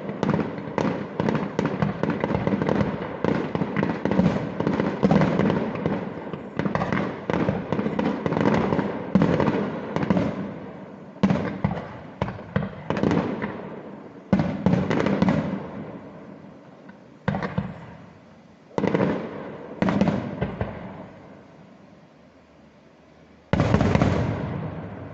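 Fireworks display: a dense barrage of rapid bangs and crackles for about the first ten seconds, thinning to single loud bangs that each trail off. The last big bang comes near the end.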